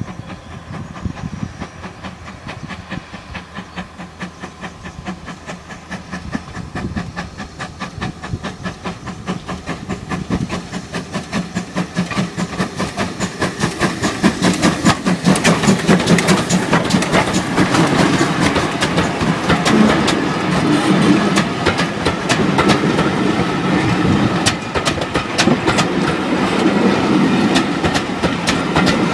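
Steam locomotive 5164, a GWR Large Prairie 2-6-2 tank engine, working a passenger train: a fast, even run of exhaust beats grows louder as it approaches. From about halfway in, the locomotive and its carriages pass close by with the steady rumble of wheels on rail.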